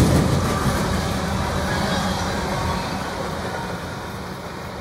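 Freight train's open-top hopper cars rolling past on steel rails, a low rumble that fades steadily as the end of the train passes and draws away.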